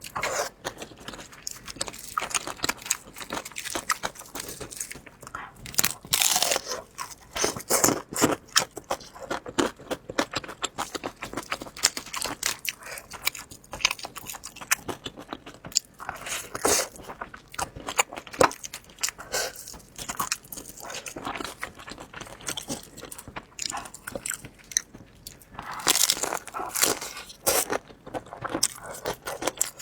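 A person eating close to the microphone: crunching bites and chewing, a dense run of small crackles with a few louder bites.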